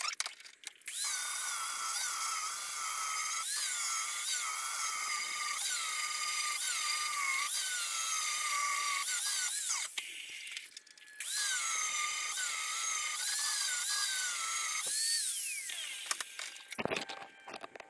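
Angle grinder grinding the cutting edge of a steel lawn mower blade held in a bench vise: a high whine whose pitch dips and recovers as the disc is pressed against the steel, with a brief break about ten seconds in. The grinder winds down near the end, followed by a few knocks as the blade is handled in the vise.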